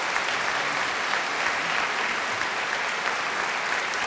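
Large audience applauding steadily, many hands clapping together, at the close of a talk.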